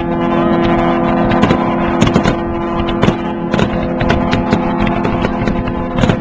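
Fireworks going off in quick, irregular bangs and crackles, over a long steady horn tone that holds throughout.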